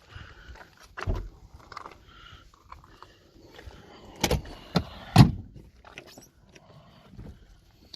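Scattered sharp knocks and clinks of metal tools and parts being handled during car repair work: one about a second in, and the three loudest a little past the middle.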